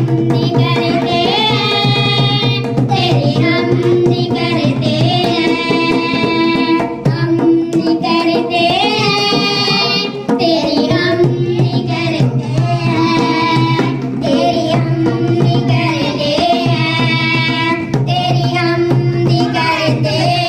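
Two women singing a devotional song through microphones, phrase after phrase, accompanied by a hand-played dholak barrel drum, over a steady low drone.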